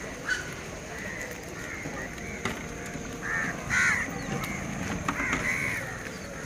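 Birds calling outdoors, a string of short repeated calls over a faint background hum, the loudest a little under four seconds in.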